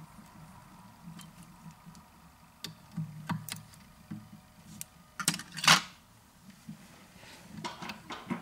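Small clicks, taps and rustles of hands working a fly in a fly-tying vise while tying off the thread with a whip-finish tool, with a louder short scratchy rustle about five and a half seconds in.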